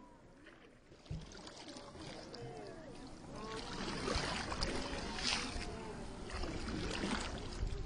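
Plastic paddle strokes in calm lake water from a small canoe: the blade dips and splashes about three times in the second half, with water swishing between strokes. A single low knock about a second in.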